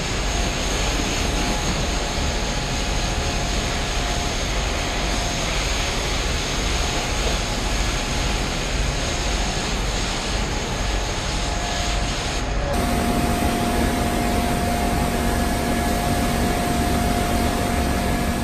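Pressure washer running: the steady hiss of a high-pressure water jet spraying the back of a bus, over the hum of the washer's motor and pump. Roughly two-thirds of the way through the sound changes abruptly and a steady hum becomes clearer.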